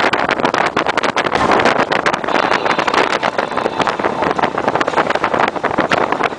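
Wind buffeting the microphone over the engine and road noise of a motorcycle riding at highway speed, a loud, steady rush with constant crackle.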